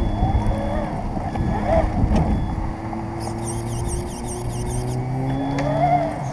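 Radio-controlled car driving along an asphalt path, its motor humming steadily over a rough rumble of its tyres on the pavement, with longboard wheels rolling on the asphalt as well.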